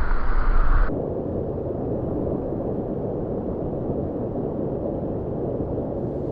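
Mountain stream rushing steadily. For about the first second it is louder and rumbling, then it changes abruptly to a steadier, duller rush.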